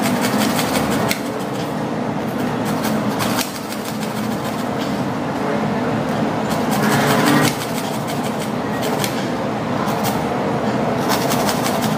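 Hacksaw cutting through a tough white plastic pipe with continuous back-and-forth strokes.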